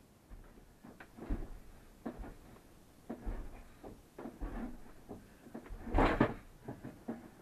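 Handling noise from pulling out old freshwater hose: irregular knocks, clunks and rustles of the hose and cabinetry, with a louder burst of scraping and knocking about six seconds in.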